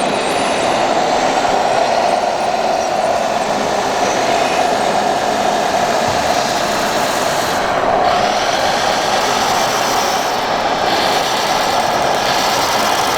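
Radio-controlled scale model running with a steady mechanical noise at an even level.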